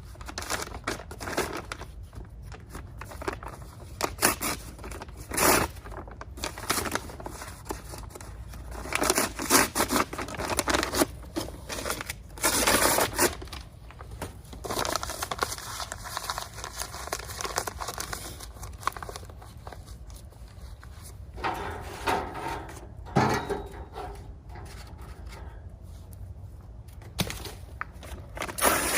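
Bonfire and kindling sounds: irregular crackling and crinkling, with louder rustling bursts every few seconds over a low steady rumble.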